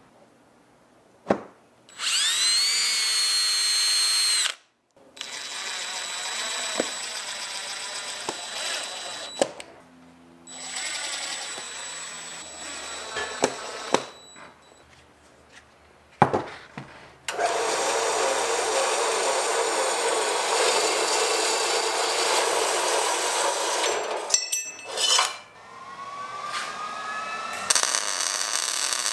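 Power tools run in a series of separate short bursts, each a few seconds long with abrupt cuts between them; some spin up with a rising whine before running steadily.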